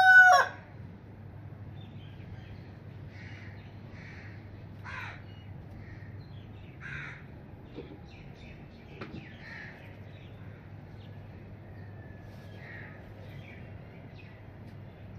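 A rooster's crow cuts off about half a second in. After it come faint, scattered bird calls every second or two over a low steady hum.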